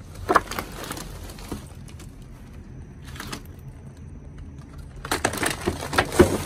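Trash being rummaged through by hand: plastic bags, cardboard and packaging rustling and crinkling in scattered bursts, busiest near the end.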